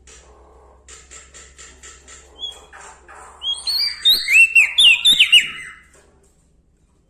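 Prenjak Daun Lombok songbird singing: a run of soft, quick chip notes, then a loud burst of high, sliding whistled phrases that stops about six seconds in.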